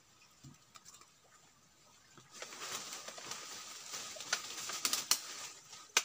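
Leaves and twigs rustling and crackling underfoot in cut brush, starting about two seconds in, with a few sharp twig snaps.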